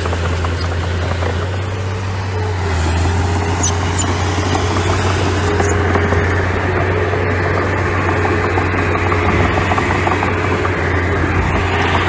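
Heavy diesel engine of earthmoving machinery running steadily with a low drone, with scattered light clicks and rattles over it.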